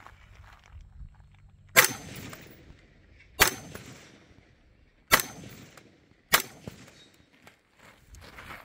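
VHS-2 bullpup rifle in 5.56 NATO fired four single shots, unevenly spaced about one to two seconds apart, each a sharp crack with a brief echo.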